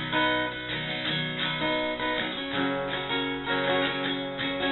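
Acoustic guitar strummed in a steady rhythm, its chords changing every second or so.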